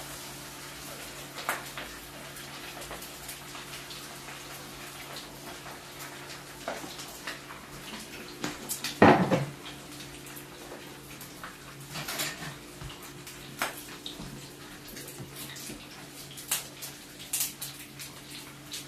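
Buffalo fish frying in hot grease in a pan on the stove: a steady sizzle with scattered sharp pops and crackles. About nine seconds in comes a loud clatter, the loudest sound, like a utensil or pan knocking.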